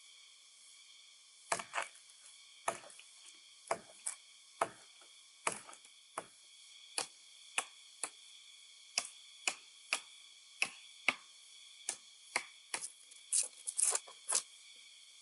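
Repeated sharp chopping knocks on wood, about two dozen strokes at a steady pace of roughly one every half second, bunching closer together near the end. A steady high-pitched hum sits behind them.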